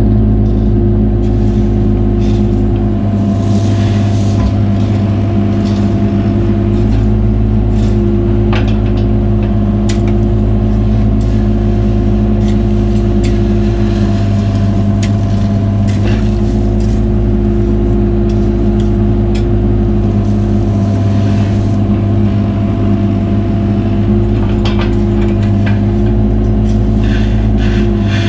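Caterpillar 303 mini excavator's diesel engine running steadily under work, with a higher hydraulic note that drops out and comes back several times as the controls are worked. Scattered sharp clicks and knocks sound over it.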